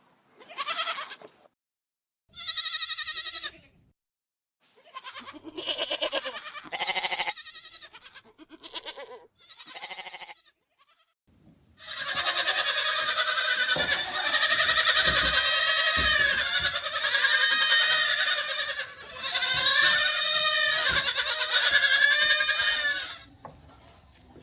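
Goat bleating: several short separate bleats, then from about halfway a long, loud, unbroken run of wavering bleating that cuts off near the end.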